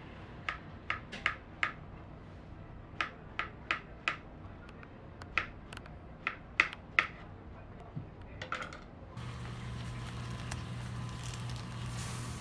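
Small knife slicing strawberries on a plastic cutting board: a series of short, sharp taps in small groups as the blade meets the board. About three-quarters of the way through the taps stop and a steady low hum takes over.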